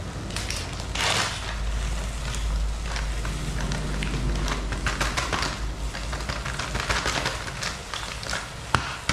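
Beef sizzling in a wok over a stove burner that runs with a steady rumble, while a plastic packet of chicken bouillon powder is shaken and crinkled over the pan. A few sharp knocks come near the end.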